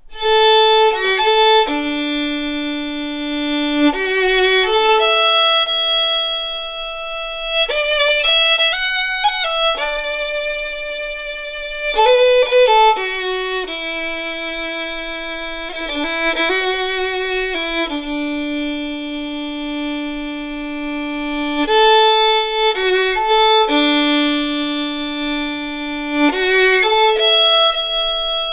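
Solo fiddle playing a slow melody: long held notes joined by quick ornamented turns and slides, one line with no accompaniment.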